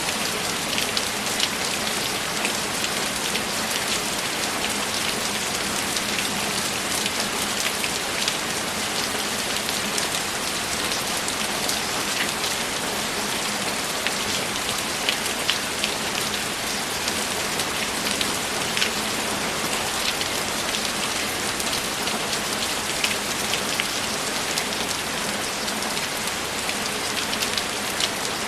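Steady heavy rain: a dense, even hiss of falling rain with many small sharp drop ticks through it.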